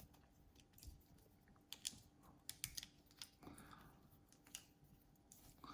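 Faint, scattered metal clicks from a Leatherman Signal multi-tool being handled, a few sharp ticks spread over several seconds.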